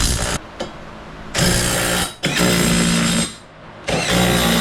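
Power tool run in several short bursts, the longest about a second each, with a steady motor hum under a harsh rattle.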